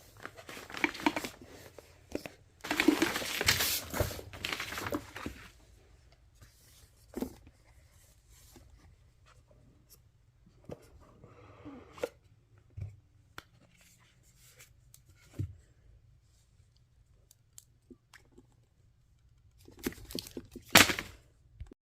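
Handling noise: rustling and scraping bursts with scattered sharp clicks, and a loud rustle near the end.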